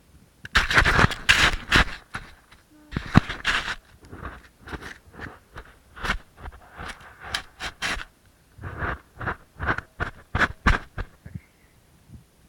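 Repeated scraping strokes on snow, heavier in the first two seconds, then settling into a rhythm of about two a second before stopping near the end.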